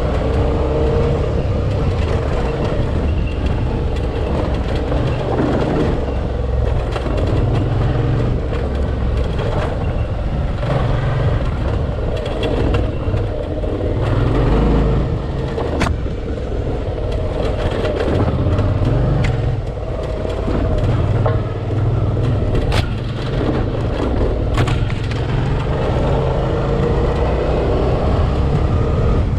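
Dual-sport motorcycle engine running off-road, its pitch rising and falling with the throttle. A few sharp clicks cut through, about halfway in and again near the end.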